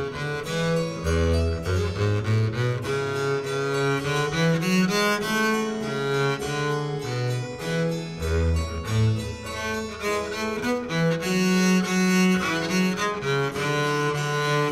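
Instrumental string music led by cello, a quick-moving line of notes over sustained low bass notes.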